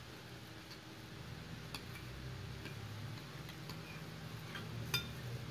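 A metal spoon clinking and scraping against a bowl while tuna and mayonnaise are stirred: a handful of light, irregular clinks, the loudest near the end.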